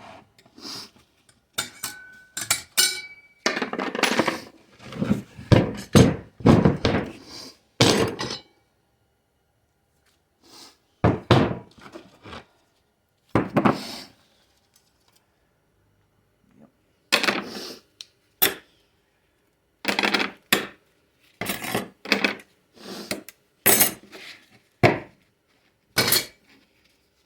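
4L60E automatic transmission clutch drums and plates being handled and set down during a teardown: irregular metal clanks and clinks, a few ringing briefly, with a couple of quiet pauses.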